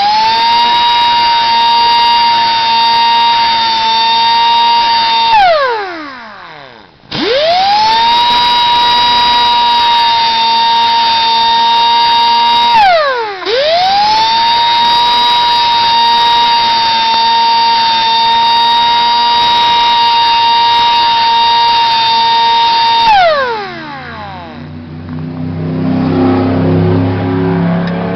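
A small high-speed electric grinder whining at a steady high pitch, run three times: each run spins up quickly, holds, and winds down with a falling whine as it is switched off, plausibly grinding down the chain's rakers (depth gauges). A lower, rougher sound follows near the end.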